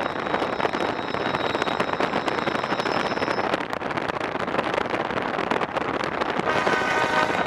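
Steady, loud rushing vehicle noise full of crackles and clicks, with wind on the microphone. A brief pitched, horn-like tone sounds about six and a half seconds in.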